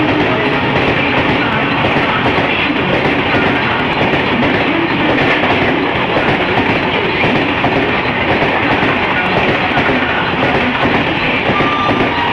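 Express passenger train passing close by at speed: a loud, steady rush of wheels on rail with a clickety-clack over the rail joints.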